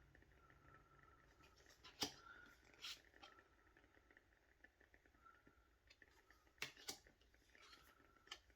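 Quiet handling of tarot cards: a few soft clicks and taps of the cards, the sharpest about two seconds in and a close pair near seven seconds, over faint room tone.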